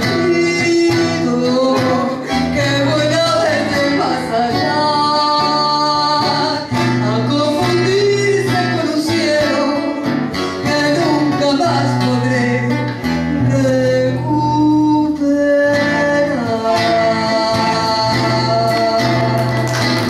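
Live song: a woman singing into a microphone with long held notes, accompanied by acoustic guitar.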